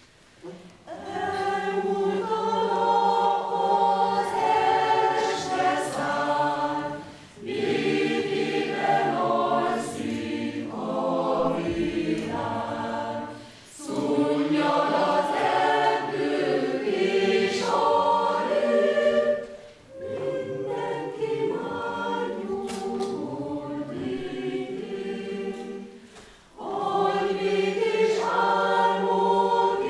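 Mixed choir of adult and children's voices singing a hymn in phrases about six seconds long, with a short break between phrases. It starts about a second in.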